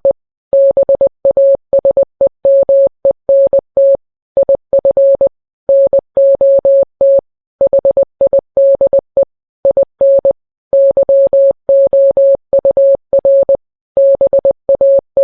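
Morse code sent as a single steady mid-pitched beep, keyed on and off in short dots and longer dashes, with brief pauses between letters and longer ones between words. The code spells out a tornado warning message.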